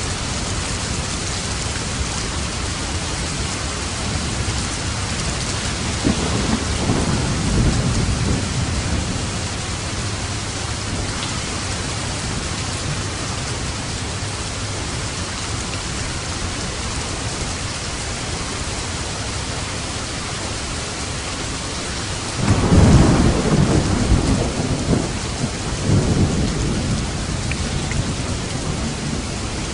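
Steady heavy rain hissing, with thunder rumbling twice: a rolling rumble about six seconds in, and a louder crack-and-roll that starts suddenly about two-thirds of the way through and rolls on in surges.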